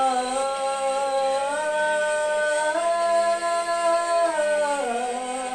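A woman's voice singing long held wordless notes ('whoa'), stepping up in pitch twice and then sliding down near the end.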